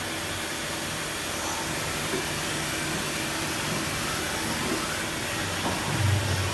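Steady machine noise, an even hiss with a faint low hum, with a brief louder low rumble about six seconds in.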